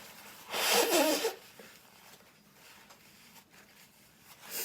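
A person's loud nasal burst of breath, under a second long, about half a second in, as from a sneeze or a hard nose-blow set off by dust. A short sniff comes near the end.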